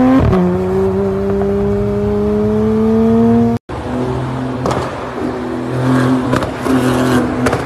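Porsche 911 GT3 flat-six accelerating hard, its note climbing steadily with an upshift just after the start. After an abrupt cut, a Porsche 911 GT2 RS flat-six running in a road tunnel, its note rising and falling, with several sharp cracks from the exhaust.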